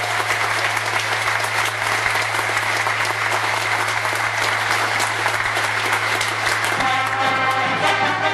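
Audience applauding, with a steady low electrical hum underneath. About seven seconds in, the accordion band starts up a tune over the applause.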